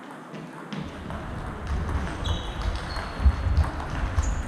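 Table tennis rally: the celluloid ball clicks off the bats and table in an irregular run of sharp ticks, with short high squeaks of shoes on the hall floor and low thumps of footwork.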